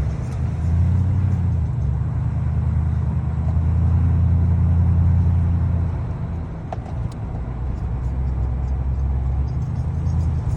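2010 Toyota Tundra pickup on the move: a steady low rumble that eases off briefly a little past halfway and then builds again, with faint ticking and one sharper click.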